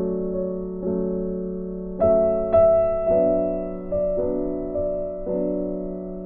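Background keyboard music, like a soft piano: chords and notes struck every half second to a second, each one fading away.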